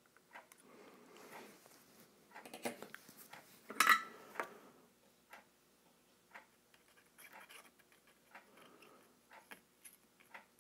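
Faint handling noise of needle-nose pliers and a soldering iron working a wire onto a volume pot lug: small clicks and short rustles, loudest about four seconds in. A clock ticks about once a second through the quieter second half.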